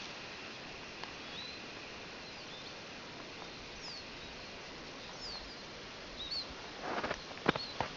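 Small birds chirping faintly here and there, short high calls and quick glides. Near the end, a few crunching footsteps and a sharp snap.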